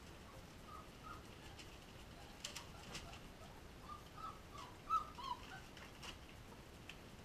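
Young puppies giving short, faint whimpers and squeaks, with a louder cry about five seconds in, and newspaper crackling under them as they crawl.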